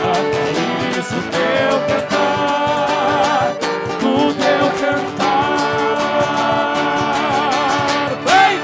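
Live gaúcho folk band music: singers over steady chords and a regular beat, building to a loud last sung note shortly before the end.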